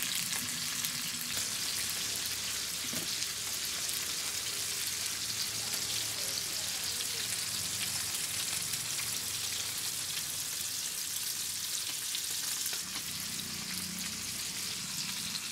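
Whole Indian mackerel shallow-frying in oil in a wide iron kadai: a steady sizzle with fine crackling.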